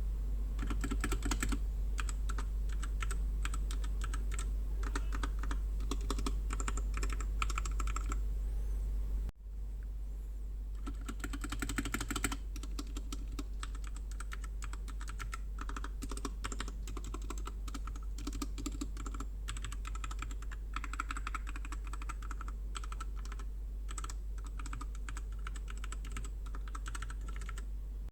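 Typing on a Royal Kludge RK61 60% mechanical keyboard: rapid flurries of keystroke clacks with short pauses between runs. There is a brief break about nine seconds in, after which the typing carries on a little quieter.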